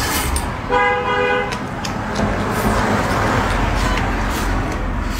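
Close-up slurping and chewing as strips of food are sucked in from a plate. A car horn honks once in the background about a second in, for under a second.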